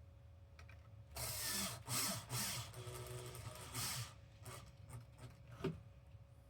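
Xbox Series X console parts being handled and fitted back together: a rough scraping and rattling from about a second in that lasts about three seconds, followed by a few small clicks.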